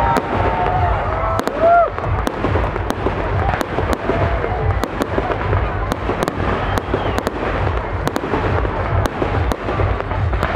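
Aerial fireworks display: shells launching and bursting in quick succession, a continuous mix of deep booms and sharp cracking reports.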